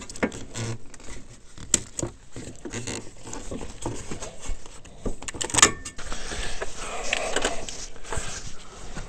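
Hands working around an ATV's engine bay with pliers and plastic parts: irregular clicks, knocks and scrapes. A quick burst of sharp rattling comes a little after the middle.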